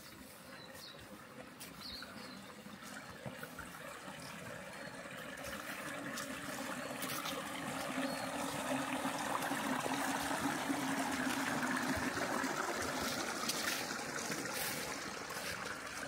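Small stream of water trickling, growing louder over the first half and easing a little near the end.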